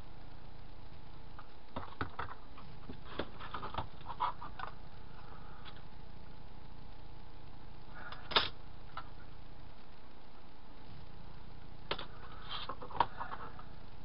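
Styrene plastic bracket parts handled on a workbench: scattered light clicks and taps, the sharpest about eight seconds in and another near the end, over a steady background hum.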